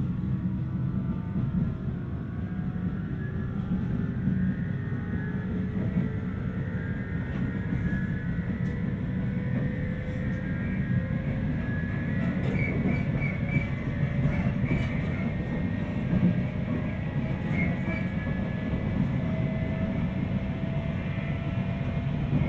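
Interior running sound of a JR 719 series AC electric multiple unit: a steady rumble of the running gear with a whine that rises slowly in pitch as the train picks up speed. This set's whine has the jet-like character that the recordist counts as an unusual noise.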